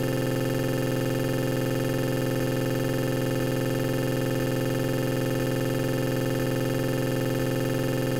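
A steady, unchanging buzzing drone held on one pitch, with faint ticks about once a second from about two seconds in.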